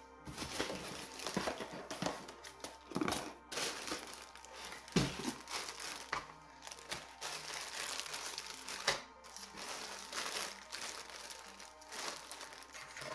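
Packaging crinkling and rustling in irregular handfuls as supplies are handled and unwrapped, with music playing underneath.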